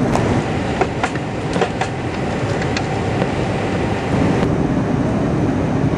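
Steady roar inside an Airbus A321-231 passenger cabin, airflow and engine noise, with several light clicks or rattles in the first three seconds. The tone of the roar shifts slightly a little after four seconds in.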